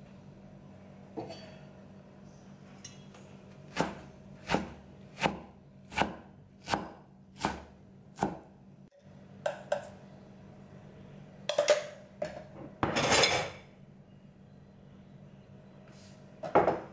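Kitchen knife chopping blanched spinach on a wooden cutting board: a run of about seven evenly spaced chops, then a few scattered knocks and a longer noisy burst, with one more sharp knock near the end.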